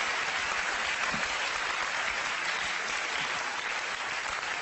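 Audience applauding: steady clapping from a large seated crowd, easing slightly near the end.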